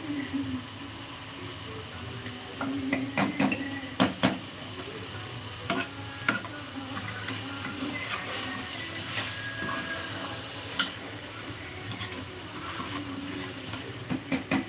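Steel ladle stirring and scraping masala in a pressure cooker, knocking against the pot's side every so often, with a cluster of knocks about three to four seconds in. The masala sizzles faintly underneath.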